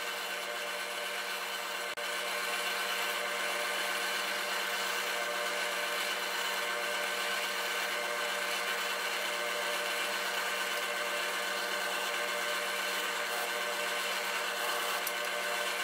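Benchtop drill press motor running at a steady pitch while a small 5/64-inch bit bores holes into a poplar board.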